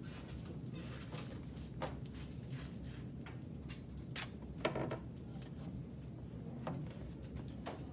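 Athletic tape being pulled off the roll and wrapped around an ankle: a handful of short rips and rustles, the loudest just past halfway.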